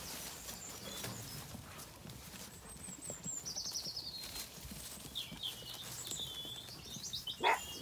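Small birds singing, with a quick descending trill about three and a half seconds in and more chirping after, over the soft shuffling of a flock of sheep moving through grass. A short, sharp animal call near the end.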